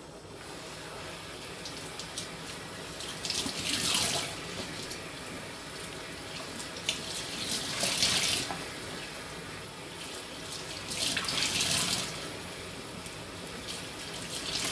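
Kitchen tap running into the sink while a cleaning cloth is rinsed under it, with three louder splashing surges about four seconds apart as the cloth is worked in the water.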